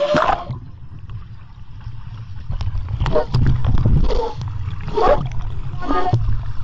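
Muffled underwater sound picked up by a phone's microphone sealed inside a condom: a steady low rumble with short bursts of gurgling and bubbling several times.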